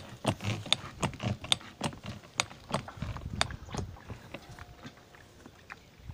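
A quick, irregular run of sharp clicks and knocks, about two or three a second, that thins out after about four seconds, with a brief faint steady tone near the end.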